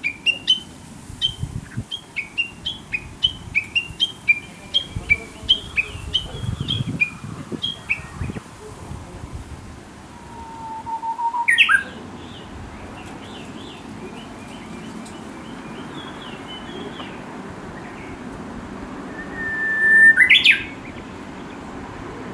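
Japanese bush warbler singing its 'hoo-hokekyo' song twice, about eleven and twenty seconds in: a held whistle, then a quick rising flourish. Before that, a fast series of short, repeated chirps runs for the first eight seconds or so.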